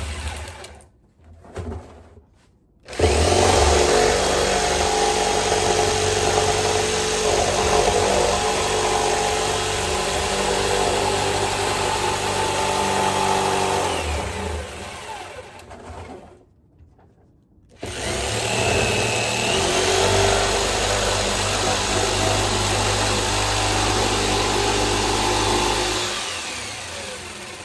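Jigsaw cutting through the top of a 55-gallon barrel in two long runs. It starts about three seconds in, winds down near the middle, pauses briefly, then cuts again before trailing off near the end.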